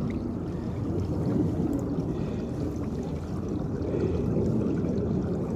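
Water flowing in a farm irrigation channel: a steady, low rushing noise.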